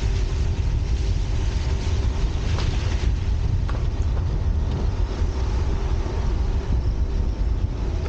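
Wind rumbling on the microphone outdoors, with a faint steady hum underneath and a few small clicks.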